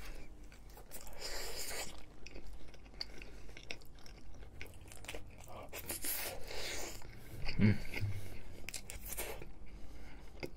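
A man chewing mouthfuls of meatball spaghetti, with wet mouth and chewing noises and small clicks.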